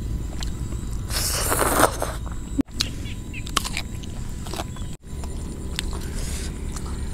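Crunchy bites and chewing of raw vegetables such as radish, in short clips cut together, the sound breaking off abruptly twice. A steady low rumble lies underneath.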